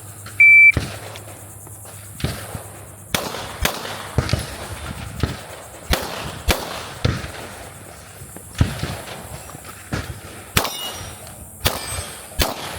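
A shot timer beeps once, then a 9mm pistol fires a string of single shots at irregular intervals through a timed course of fire. The last few hits ring steel targets with clangs.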